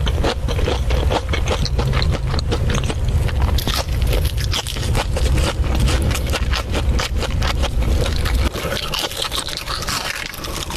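Close-miked chewing of crispy food: dense, rapid crunching and crackling. A low rumble underneath drops away about eight seconds in.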